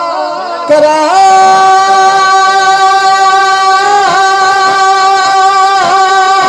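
A man sings a Punjabi naat into a microphone, amplified over a PA loudspeaker. About a second in, his voice rises into one long held note that lasts about five seconds, with two brief dips.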